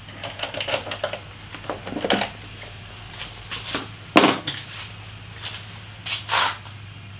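Handling clicks and knocks as the seat of a Super Soco TS electric motorcycle is unlocked with the key and lifted off. The sharpest knock comes about four seconds in and another near the end, over a faint low hum.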